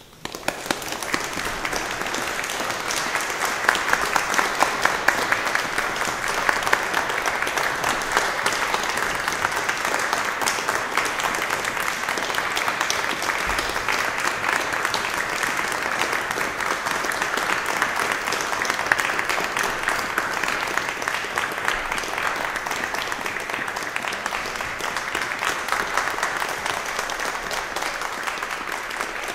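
Audience applauding, breaking out suddenly and continuing steadily.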